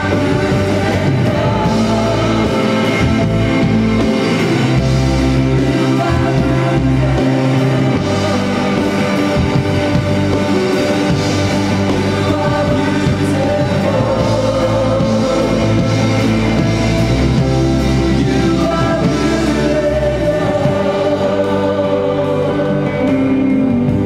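Live worship band playing a song, drums, bass and guitars with a voice singing over them, at a steady loud level.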